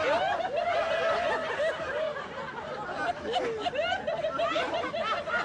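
People laughing: giggles and chuckles from several voices overlapping without a break.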